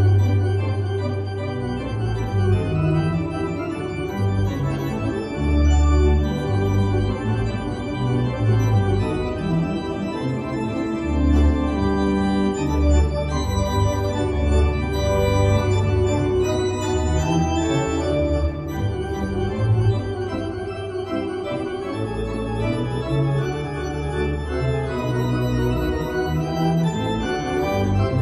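Hybrid digital/pipe organ played with full chords on the manuals over a pedal bass line, the bass notes changing every second or two.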